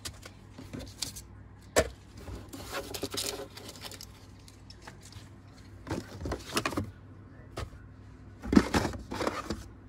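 Objects being taken out of a car's plastic glove box by hand. Several short bursts of rustling and light knocks and clicks come and go, each a few seconds apart.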